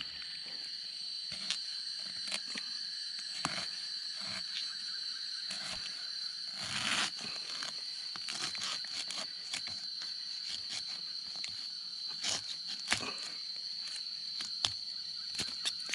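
A steady high-pitched insect drone, with scattered crunches and snaps of dry leaves and twigs from someone moving and working in bamboo undergrowth. There is a louder rustling crunch about seven seconds in.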